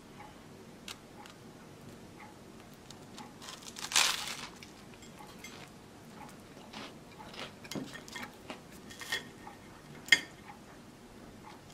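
Eating toast with a knife and fork: a loud crunch of dry, stiff rye toast about four seconds in, with soft scrapes and taps of cutlery between. Near the end comes a sharp, ringing clink of metal on a ceramic plate.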